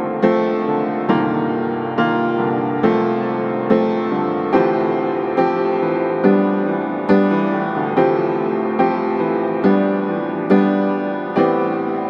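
Background piano music, a note or chord struck on a steady pulse a little faster than once a second, each one ringing on until the next.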